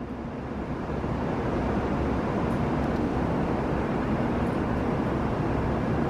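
Shinkansen train approaching the platform: a steady rushing rumble that grows over about the first second and a half, then holds.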